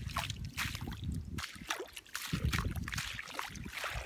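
Irregular wet, splashy footsteps through mud and shallow puddles on a tidal mudflat, with a brief lull about two seconds in.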